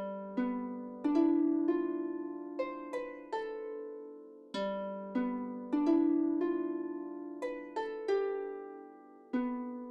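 Background music: a melody of plucked notes, each note struck sharply and then fading away.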